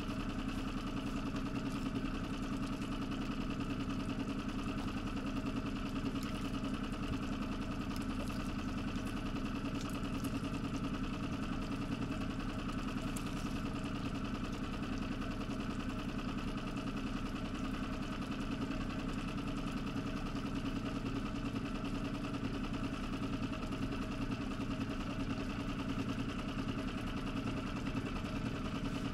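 A small boat engine idling steadily at one unchanging speed.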